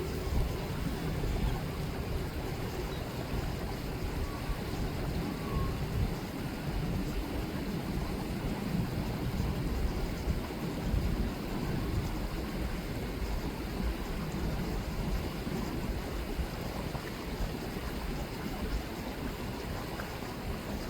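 River water rippling and rushing in a steady, unbroken wash, heaviest in the low range.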